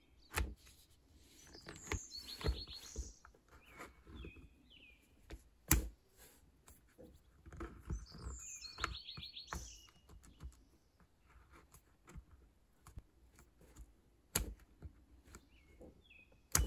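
Scattered light clicks and knocks of a pole saw's steel chain and plastic tension knob being handled. A bird sings in the background, the same short chirping phrase twice, with a few single chirps between.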